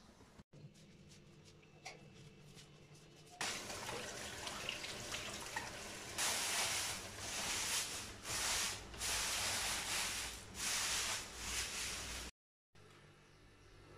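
Tap water running and splashing into a stainless-steel sink as sheep tripe is rinsed under the stream, the splashing swelling and dipping as the tripe is moved. It starts about three seconds in after a quiet stretch and cuts off suddenly near the end.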